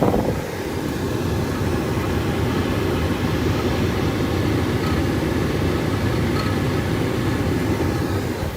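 Trane gas furnace's induced draft blower running steadily with a dense whooshing hum, while the burners have not lit. The sound drops off noticeably near the end.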